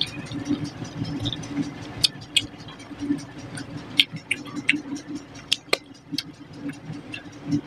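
Close-up chewing of fish curry and rice, with irregular wet mouth clicks and smacks, over a steady low hum.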